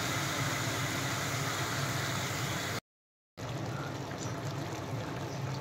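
Marinated chicken pieces sizzling and bubbling in a pan, simmering in the water released from the chicken. The sound cuts out for about half a second near the middle, then comes back with less hiss.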